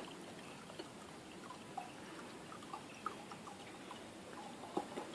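Faint trickling and dripping of vinegar being poured into a jar, with a few light clicks.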